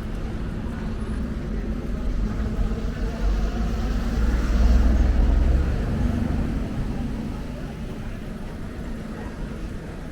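Street traffic: a motor vehicle's low engine rumble grows louder and passes about five seconds in, then fades.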